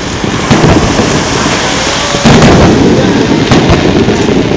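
Aerial firework shells bursting: several sharp bangs, the loudest a little over two seconds in, over a steady low rumble.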